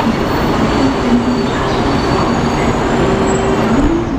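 Taiwan High Speed Rail 700T train rolling slowly alongside the platform as it draws to a stop: a dense, steady rumble and hiss with a thin high whine. The hiss eases near the end as the train halts.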